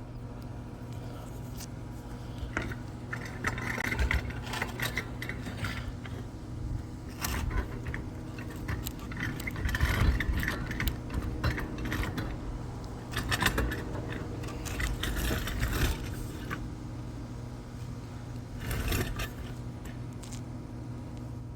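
Irregular scraping and light metallic rattling of hands working at a rooftop dryer vent cap, clearing out clogged lint, over a steady low hum.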